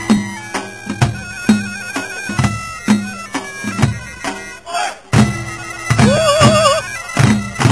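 Korean pungmul music: drums beaten in a steady pulse of about two strokes a second, under a shrill, wavering reed-pipe melody typical of the taepyeongso. The music dips briefly a little before the five-second mark, then comes back louder.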